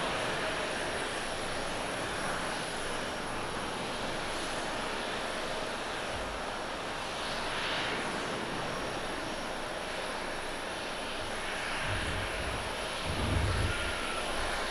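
Boeing 787-9 Dreamliner rolling out on the runway after landing, spoilers up: a steady rush of jet engine and airframe noise, with a few deeper low rumbles about twelve seconds in.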